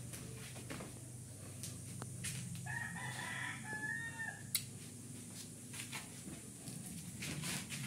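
A rooster crowing once, about three seconds in, for nearly two seconds, over a low steady hum and a few sharp clicks.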